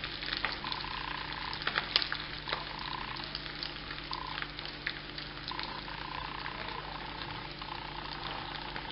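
Stuffed bitter gourds shallow-frying in hot oil in a pan, sizzling steadily with scattered sharp pops and clicks as they are turned with tongs.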